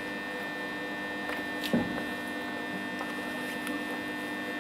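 Steady electrical hum made of several steady tones, with a single short knock a little under two seconds in.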